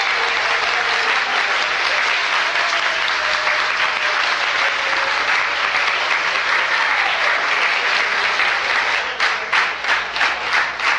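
Audience applauding, dense at first, then thinning out to separate claps near the end.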